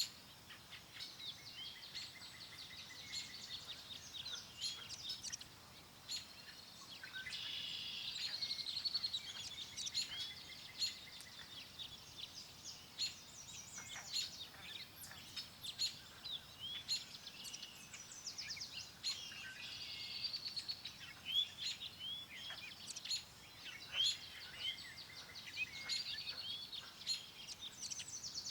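Several songbirds chirping and singing at once, overlapping short calls and trills that go on without a break, over a faint steady background hiss.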